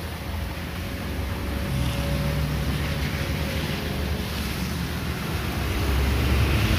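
Diesel locomotive engine running with a low rumble as the empty cement train creeps forward on wet rails, under a steady hiss. Both grow gradually louder toward the end.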